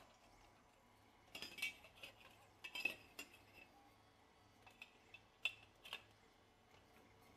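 Light clicks and clinks of hard plastic parts knocking together as a chassis crossbar is handled and set between the 3D-printed tank's track assemblies: a cluster about a second in, the loudest near three seconds, and two sharp taps near six seconds.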